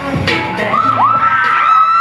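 Dance music playing for a stage routine while the audience cheers and shouts, with shrill gliding cries and one long held cry near the end that drops in pitch.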